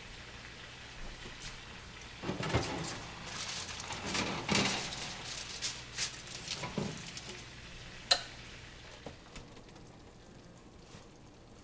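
Kitchen handling noises: dishes and pans being moved in a few scattered bursts, with one sharp knock about eight seconds in.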